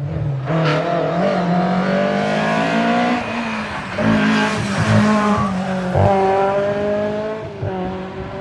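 Historic rally car's engine pulling hard under acceleration, its pitch climbing in each gear and dropping at two gear changes, about four seconds in and about six seconds in.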